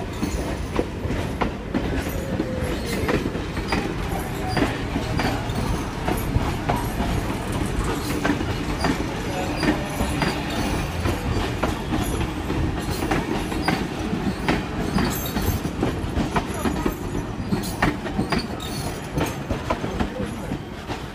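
Train carriages rolling slowly past close by, steel wheels clicking irregularly over rail joints over a steady low rumble, with a brief wheel squeal now and then.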